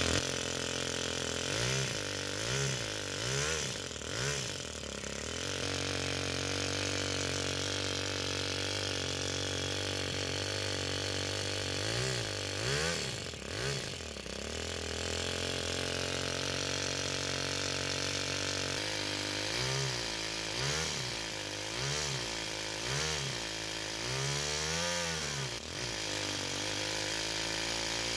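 Toyan FS-S100A single-cylinder four-stroke nitro engine running, holding a steady idle broken by quick throttle blips that rise and fall in pitch: a few about two to five seconds in, a couple around thirteen seconds, and a string of them from about nineteen to twenty-six seconds.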